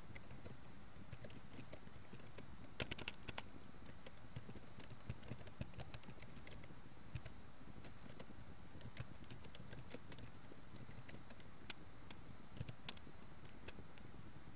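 Typing on a computer keyboard: irregular key clicks, with a quick run of several about three seconds in and scattered single strokes after, over a steady faint hiss.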